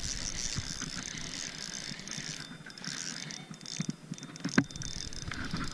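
Spinning reel being cranked to reel in a hooked fish: a steady mechanical whir from the reel's gears, with a couple of sharp clicks near the end.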